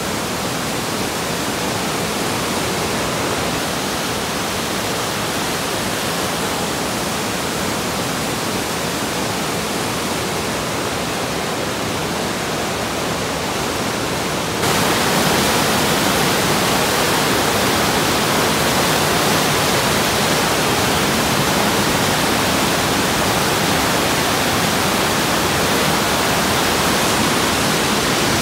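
Steady rushing of water. About halfway through it jumps suddenly to a louder, steady rush of a flood-swollen river running high with white-water rapids.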